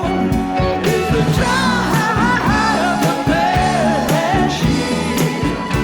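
Background music: a song with a singing voice over steady instrumental backing.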